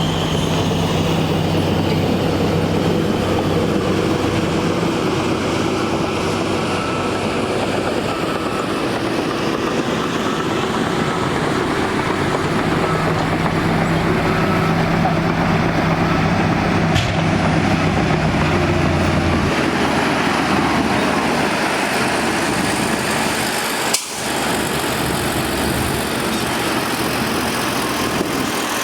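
Heavy diesel engine of earth-moving machinery running steadily. Its low note changes about two-thirds of the way through, and there is a single sharp click near the end.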